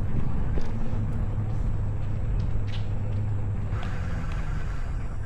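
Steady low rumble of wind on the microphone and rolling road noise while riding, with a few light clicks.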